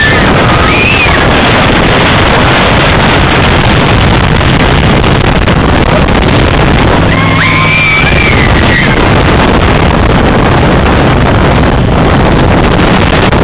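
Dune buggy driving fast over sand: engine noise and wind buffeting the microphone, loud and overloaded throughout, with a brief high wavering tone about halfway through.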